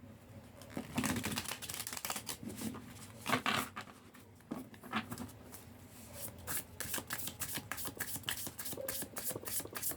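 A tarot deck (Light Seers Tarot cards) being shuffled by hand: a fast run of soft card flicks and rustles that gets denser in the second half.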